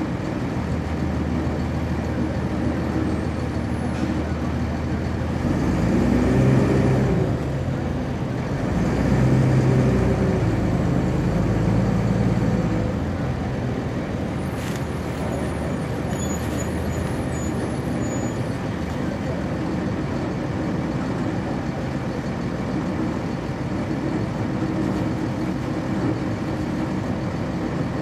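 Heard from inside a 1999 NovaBus RTS transit bus, its Cummins ISC straight-six diesel runs steadily. About five seconds in it revs up, and its pitch rises and drops three times as the ZF Ecomat automatic transmission shifts up. It then settles back to steady running, with a brief hiss of air about halfway through.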